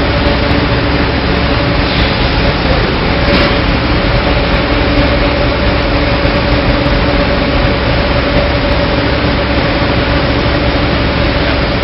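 Rotary drum dryer running with wet palm fiber tumbling inside: a loud, steady machine noise with a constant hum.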